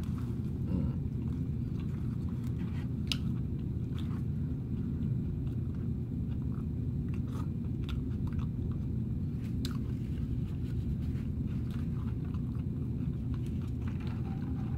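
A person chewing a crispy fish sandwich, with a few scattered crunchy clicks over a steady low background rumble.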